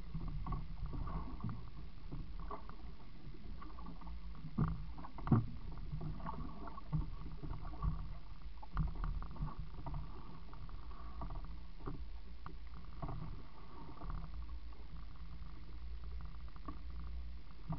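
Water sloshing against the side of a small open boat, with a handful of sharp knocks, the loudest about five seconds in.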